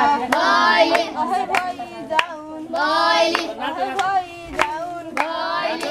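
Children singing together in unison, keeping time with a steady beat of hand claps, a few claps every second.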